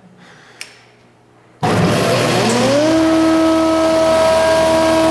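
Powermatic 201 planer, a 7.5 hp single-phase machine with a four-straight-knife cutterhead, being switched on. After a short click, it starts suddenly and loudly about a second and a half in, then runs with a whine that rises in pitch for about a second and holds steady once it is up to speed.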